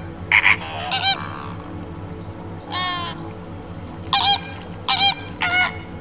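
An animal, most likely a bird, giving short pitched calls, about six of them at uneven intervals, over a steady low background hum.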